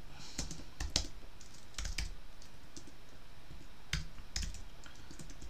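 Typing on a computer keyboard: irregular keystrokes in short runs, with a few louder key presses.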